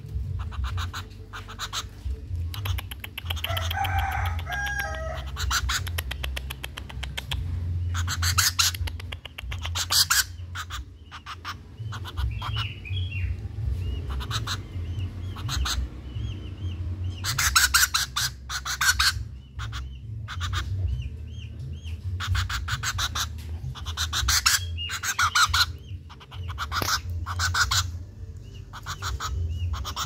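Young common flameback woodpecker giving rapid rattling calls in bursts of a second or two, many times over, with small high chirps between, as it begs while being hand-fed.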